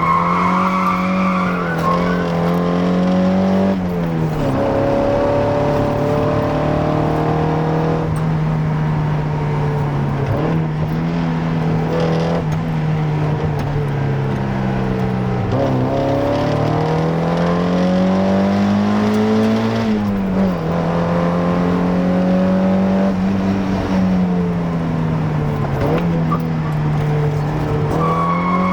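Mazda Miata NA's 1.6-litre four-cylinder engine, on a near-stock exhaust with a K&N intake filter, being driven hard. Its note climbs and falls again and again, with a sudden drop in pitch about every five seconds.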